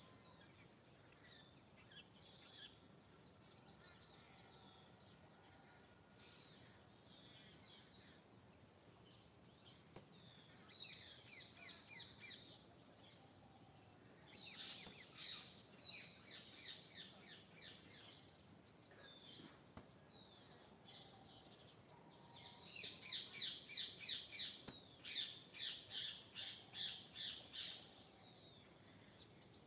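Songbirds chirping: scattered calls, then several runs of rapid, quickly repeated chirps, the longest and loudest in the last third.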